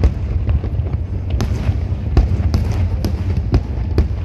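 Aerial firework shells bursting in quick succession, a string of sharp bangs, roughly two or three a second, over a steady low rumble.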